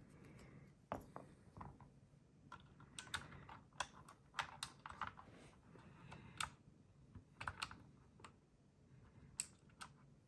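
Faint, irregular plastic clicks and taps from a mechanical keyboard as its last artisan keycap is worked onto a switch.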